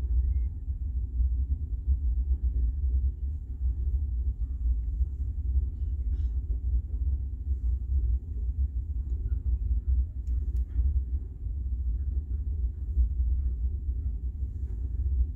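Container freight train's wagons rolling past on the track: a low, steady rumble.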